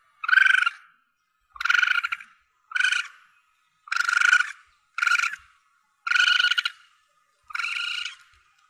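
Asian palm civet kitten calling: seven short, high-pitched calls, evenly spaced about a second apart.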